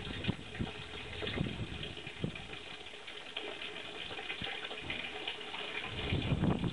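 A stream of water pouring steadily into a small koi pond, with a few sharper splashes and a heavier burst of splashing near the end.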